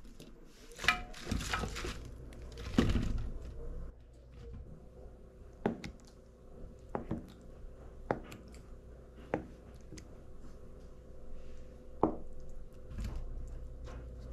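Napa cabbage leaves rustling and crunching as they are handled into a pan, then a kitchen knife cutting through a block of tofu, each cut ending in a sharp tap on a plastic cutting board, several taps about a second apart.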